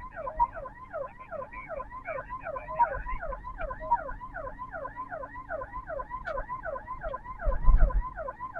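Ambulance siren sounding in fast, repeated downward sweeps, about three a second, with a brief low rumble near the end.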